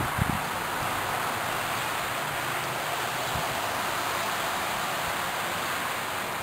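Steady splashing rush of water from a bird fountain, with a few soft low knocks right at the start.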